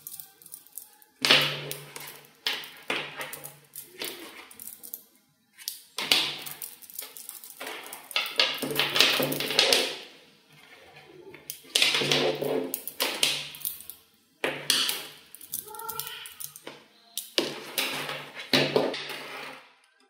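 Small magnetic balls clicking and rattling against each other as they are snapped into chains and pulled apart by hand. The clicks come in dense bursts of a second or two, with short pauses between them.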